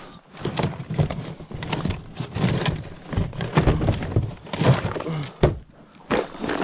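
Irregular hollow knocks and thumps against a plastic fishing kayak, a few a second, with a brief pause about five and a half seconds in.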